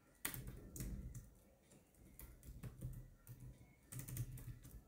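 Faint, irregular keystrokes on a keyboard as a line of code is typed.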